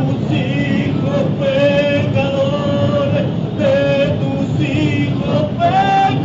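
Voices singing a devotional song in long held notes, each lasting about a second and stepping in pitch, over a dense continuous background din.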